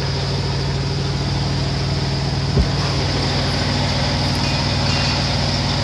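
Steady engine hum heard inside a Peterbilt 579 truck cab, with one short low thump about two and a half seconds in.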